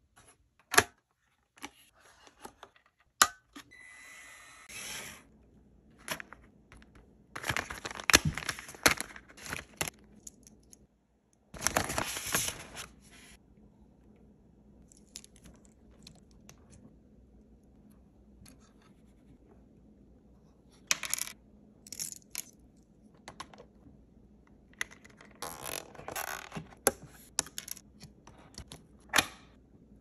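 Small plastic parts and wiring being handled and fitted on a 1:18 scale RC crawler chassis: sharp plastic clicks and snaps here and there, with stretches of rustling and scraping between them.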